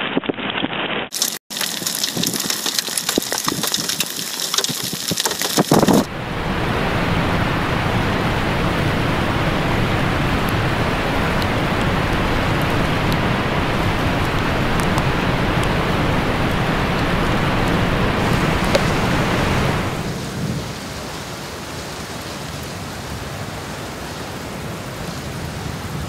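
Heavy thunderstorm rain, a steady dense hiss, heard in several clips cut together. The sound changes abruptly about a second in and about six seconds in, and it gets quieter about twenty seconds in.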